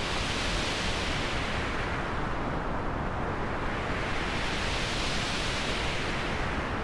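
Synthesized noise sweep: steady hiss whose brightness slowly rises and falls twice, like a filter opening and closing, used as a transition sound effect.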